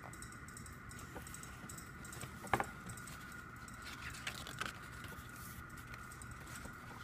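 Glossy photobook pages being handled and turned: a sharp tap about two and a half seconds in, then light papery scrapes a little later as a page turns, over a faint steady hum.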